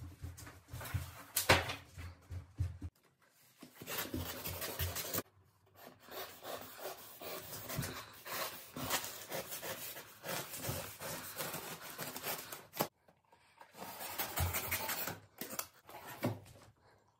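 A knife blade slicing along a cardboard box seam, with the scratchy rasp and rubbing of cardboard being cut and handled. It comes in several stretches that start and stop abruptly.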